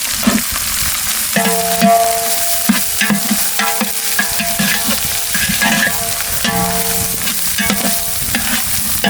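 Onions, green chillies and ginger-garlic paste sizzling in hot oil while a ladle stirs and scrapes the pot, with chilli powder just added to the masala. A ringing tone comes and goes a few times over the sizzle.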